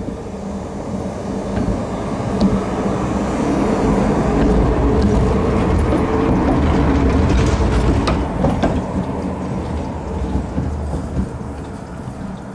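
KTM-5 tram pulling away and passing close by: its wheels run on the rails under a steady motor hum. The sound builds to its loudest as the car goes past, with a few sharp clicks about eight seconds in, then fades as it moves off.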